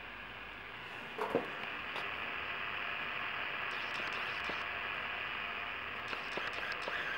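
Realistic Navaho TRC-431 CB radio's speaker giving a steady hiss of static, with two sharp clicks about a second in and a few faint ticks later.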